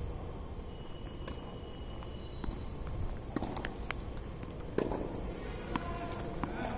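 Tennis ball being struck by rackets and bouncing on a hard court during a rally: a series of short, sharp pops and knocks a second or so apart.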